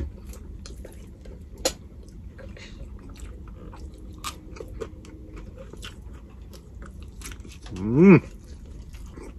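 Close-up chewing and biting of air-fried round scad (galunggong) with rice, eaten by hand: small crunches and wet mouth clicks throughout, with one sharper click under two seconds in. About eight seconds in, a brief rising hum from the eater.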